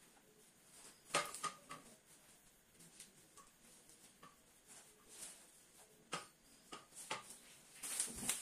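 A few faint clicks and knocks, then a plastic packaging bag crinkling near the end as a hand grabs it in the cardboard box.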